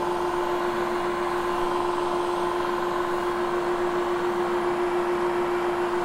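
Vacuum cleaner running steadily while parked, a constant motor hum with one fixed tone.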